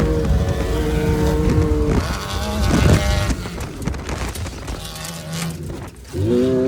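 Off-road race vehicle engines running at speed: a steady engine note, a loud revving pass with the pitch sweeping up and down about two to three seconds in, then fading, and another engine accelerating and settling into a steady drone near the end.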